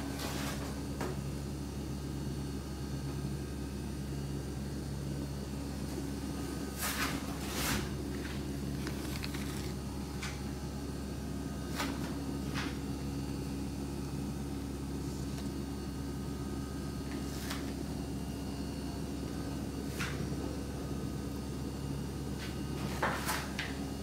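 Steady low electrical hum with a few scattered short clicks and knocks of grocery packaging being handled, the loudest about seven to eight seconds in and near the end.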